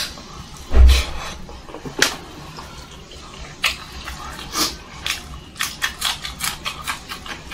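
Close-miked eating by hand: wet chewing and lip smacks with fingers squelching through soft food, heard as a string of short wet clicks. A heavier low thump comes about a second in.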